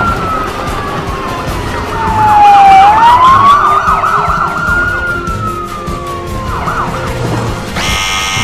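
Emergency vehicle sirens: a slow wailing siren that rises and falls, joined about two seconds in by a fast yelping siren. A steady buzzing tone starts near the end.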